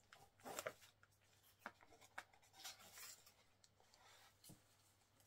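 Faint, scattered rubbing and scraping of a cardboard box being handled while its ribbon bow is pulled undone, the strongest scrape about half a second in.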